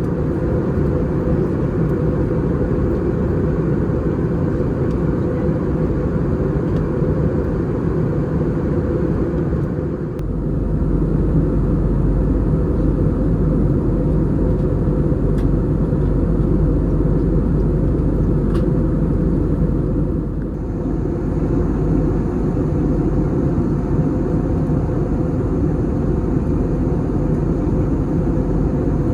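Airbus A320 cabin noise in the climb: a steady, deep rush of engine and airflow noise. Its level and tone shift slightly about 10 seconds and 20 seconds in.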